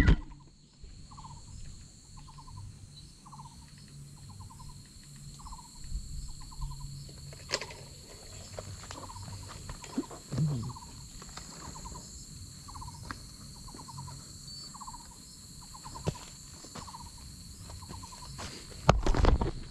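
Outdoor insect chorus: a steady high-pitched insect drone with a short, rapidly pulsed chirp repeating about once a second. A few faint knocks, and a louder brief bump and rustle near the end.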